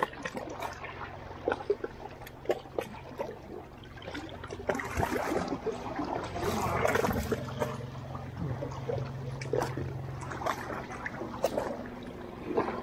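Small sea waves lapping and sloshing against shoreline rocks, swelling louder for a few seconds midway, with scattered short clicks and knocks and a steady low hum underneath.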